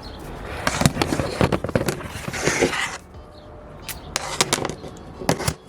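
Irregular clicks and clinks of metal hand tools and spark plugs being handled during a spark plug change, with a brief rustling hiss partway through and a few scattered clicks near the end.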